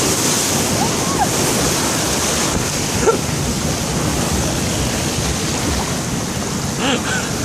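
Waves washing ashore and wind buffeting the microphone, a steady rushing noise, with a few faint brief chirps over it.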